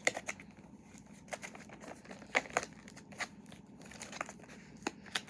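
Packaging of a Funko Soda collectible crinkling and rustling in hands as it is being opened, with scattered irregular crackles, a few sharper ones about two and a half to three seconds in.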